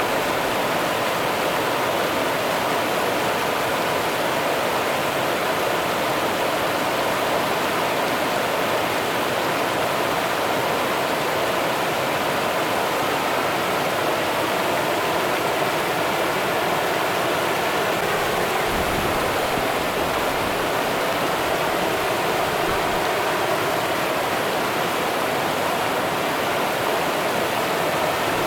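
Rio Grande river water running steadily, an even rushing hiss with no change in level. A brief low rumble comes about two-thirds of the way in.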